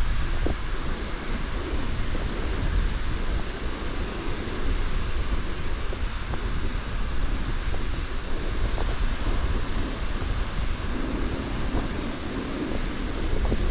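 Strong wind buffeting the microphone, with a steady rush of sea water and a heavy low rumble beneath it.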